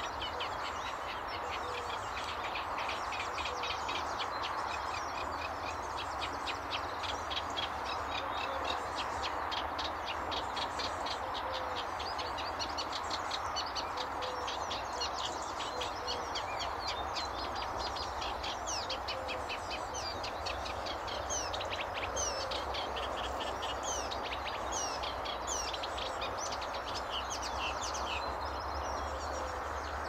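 Eurasian reed warbler singing: a long, fast, rhythmic stream of chattering, repeated notes, turning sparser with sharper sliding notes in the last third, over a steady background hiss.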